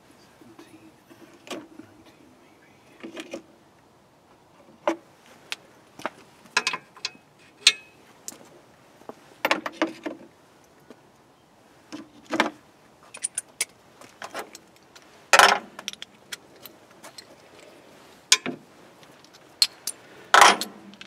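Metal hand tools clinking and knocking against each other and on metal engine parts in scattered, irregular strikes, with two louder clanks about 15 and 20 seconds in.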